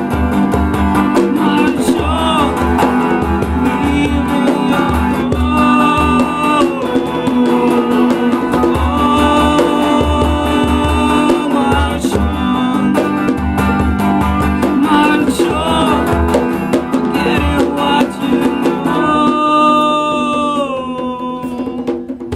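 Live band music: strummed guitar over a steady drum beat, with a held melody line that slides down near the end. The playing stops about 22 seconds in and the last chord rings out.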